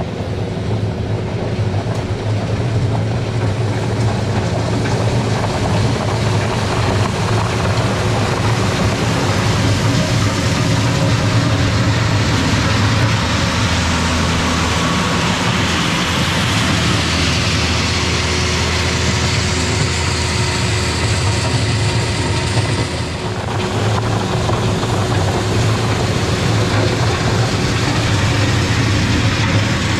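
Kubota LX4020 compact tractor's diesel engine running steadily under load, with a broad gritty noise over it, and a brief drop in level about three quarters of the way through.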